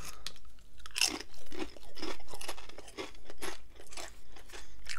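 Close-up crunchy chewing of tortilla chips, about two crunches a second.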